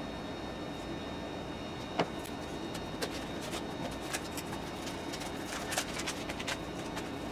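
Scattered light clicks and taps over a steady background hiss, with one sharper click about two seconds in and a run of quicker clicks after it.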